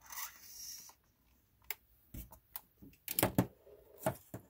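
Handling noise from a Sony WM-AF23 Walkman's plastic case as it is picked up and turned over in the hands: a brief rubbing at the start, then a series of light clicks and knocks, the loudest a pair about three seconds in.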